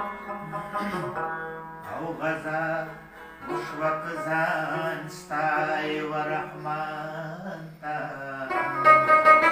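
Afghan rubab plucked in a qawwali melody while a man sings several phrases over it.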